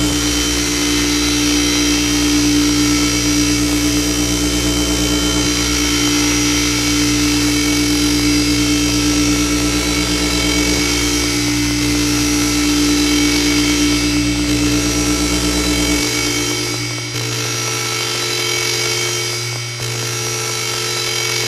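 Noisy synth drone from a drone box looped through Kaoss Pad effects: a loud, dense stack of steady tones over hiss. About 16 seconds in, the low bass layer and the strongest middle tone cut out, leaving a thinner buzzing layer with a couple of brief dips.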